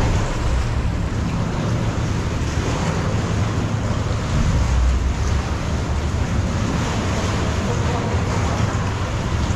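Steady mix of a motorboat running slowly and sea water sloshing against the rock walls of a sea cave, with wind buffeting the microphone.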